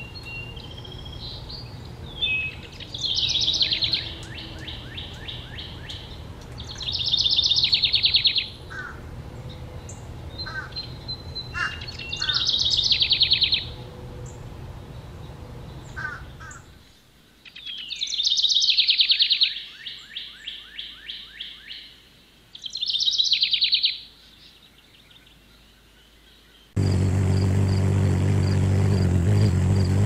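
Blue jay calling: five harsh, raspy calls of a second or so each, spaced a few seconds apart, with a few short chips between. Near the end the calls stop and a steady low hum with a faint high-pitched pulsing takes over.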